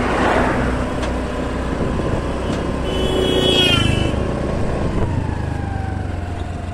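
Honda Activa 6G scooter's 110 cc single-cylinder engine running while riding, with road and wind noise on the microphone. A brief high wavering tone sounds about three seconds in, and a slowly falling tone near the end.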